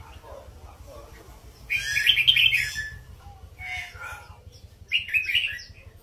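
Red-whiskered bulbul singing in short phrases of quick chirping notes. The loudest phrase comes about two seconds in, with a fainter one near four seconds and another near five.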